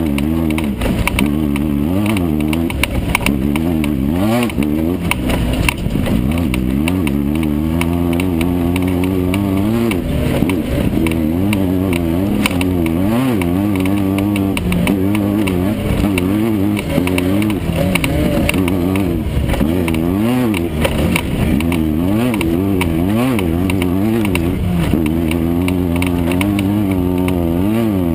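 Air-cooled Volkswagen engine of a Class 9 off-road race car running hard, its pitch rising and falling over and over as the throttle comes on and off.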